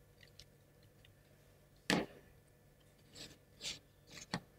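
A few light knocks and clicks from the assembled wooden Ugears Dice Keeper model being handled and set down on a cutting mat, the sharpest about two seconds in, then several softer ones near the end.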